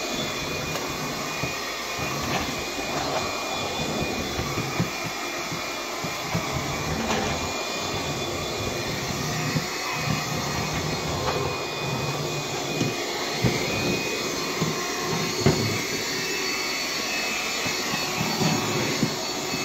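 Bissell PowerGlide cordless stick vacuum running steadily on low power with the brush roll off, its motor making a noise the owner calls weird and can't explain, with a few faint ticks along the way.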